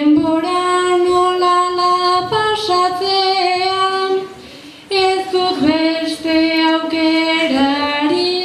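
A young girl singing a Basque bertso (a verse sung to a traditional tune), solo and unaccompanied: long held notes in two phrases, with a short breath-break about four and a half seconds in.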